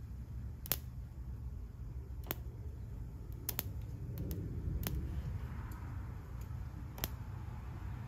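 A thin welding rod, fed from a car battery through jumper cables, tapped and scratched against a steel plate, giving about eight sharp irregular ticks over a low steady rumble. No arc lights: the battery will not strike and hold a weld, even with the polarity reversed.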